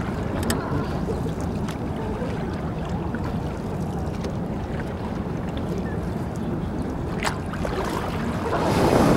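Wind rumbling steadily on the microphone, swelling louder near the end.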